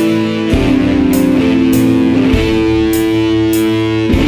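Instrumental symphonic folk metal with guitar: sustained chords that change about every two seconds over a steady beat.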